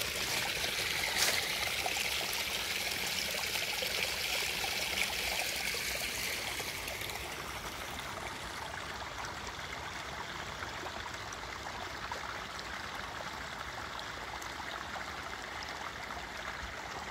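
Water running and trickling in a small forest stream, a steady rushing that is a little louder for the first several seconds, then settles softer.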